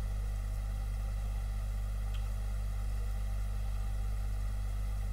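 Steady low electrical hum with a hiss over it, unchanging throughout.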